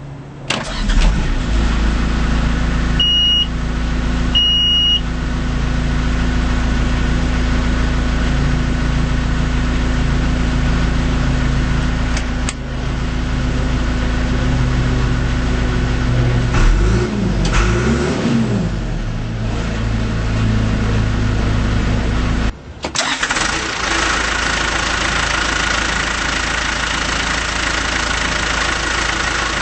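2005 John Deere 410G backhoe loader's diesel engine starting and running at a steady idle, with two short high beeps a few seconds in. Past the middle the engine revs up and down twice, and a little later the sound drops out for a moment before the engine runs on.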